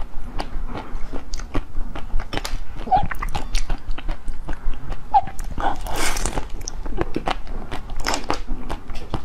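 Close-miked eating sounds: biting and chewing a jelly dessert, a dense run of quick wet clicks and crunches, with a longer noisy rush about six seconds in.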